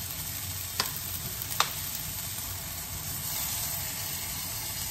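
Chopped bell pepper, onion, tomato and garlic sizzling steadily in olive oil in a stainless steel skillet as heavy cream is poured in, with two sharp clicks about a second in and a second later.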